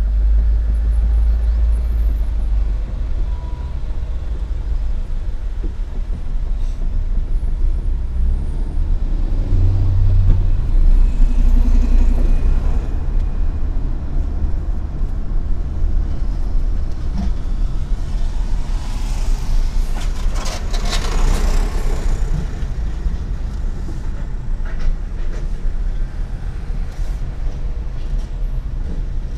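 Car being driven in city traffic: a steady low rumble of engine and road noise. About twenty seconds in, a louder rushing hiss with a few sharp clicks rises and fades over a couple of seconds.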